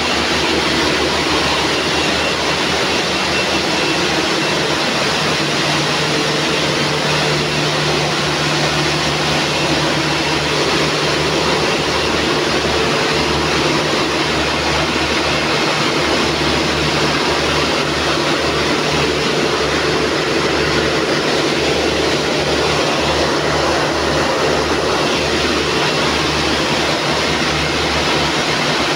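Nylon zipper coil sewing machines running steadily on a factory floor: a loud, unbroken machine din with a low hum, as the coil is sewn onto the zipper tape.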